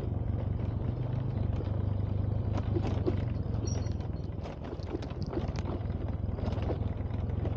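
A vehicle's engine running steadily while on the move, a low hum with scattered knocks and rattles, dipping briefly about halfway through.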